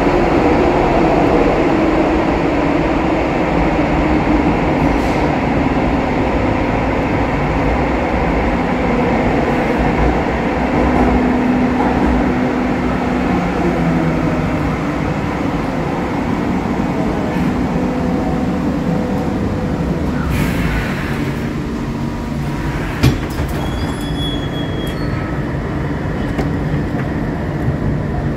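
Cologne light-rail car running on its tracks, with steady rumble and a low motor hum. Over the last third it eases off as it slows, with a click and a brief high squeal about three quarters of the way through.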